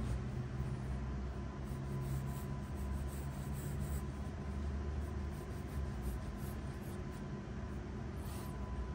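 Faber-Castell graphite pencil strokes scratching across sketch paper, several in the first few seconds and one more near the end, over a steady low hum.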